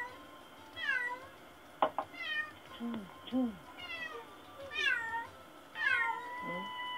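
Domestic cat meowing over and over, about once a second, each meow falling in pitch and the last one drawn out: the lonely crying of a cat left home alone. A single sharp click about two seconds in.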